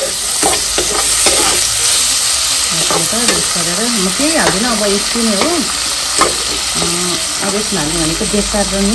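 Sliced onions and tomatoes sizzling in hot oil in a metal kadai, stirred and scraped with a steel spoon that clicks against the pan. A wavering low tone comes in from about three seconds in.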